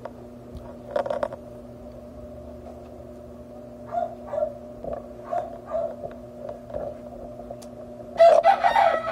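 A rooster crowing near the end, a loud long call that falls in pitch as it trails off, over a steady low hum.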